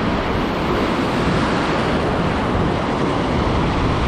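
Steady rush of ocean surf breaking on a beach, with wind on the microphone.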